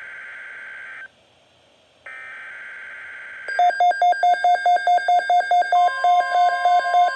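Emergency Alert System SAME header: buzzy digital data bursts, each about a second and a half long with a second's gap between them. About halfway in, a loud pulsing alert tone starts, beeping about four to five times a second, and a second, higher steady tone joins near the end.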